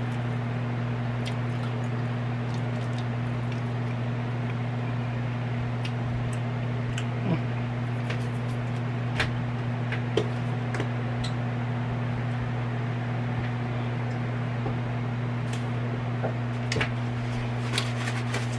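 A steady low hum, unchanging throughout, with a few faint short clicks and taps scattered over it.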